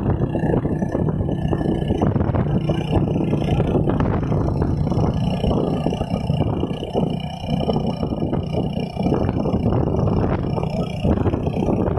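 Honda 125 motorcycle's single-cylinder four-stroke engine running steadily under load, its rear wheel driving a water pump that draws from a well.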